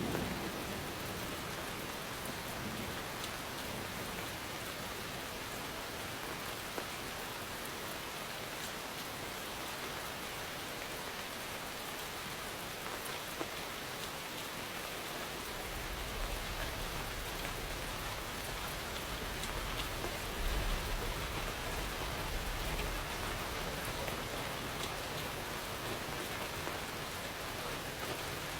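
Steady rain falling on a surface, with a low rumble of distant thunder coming in about halfway through.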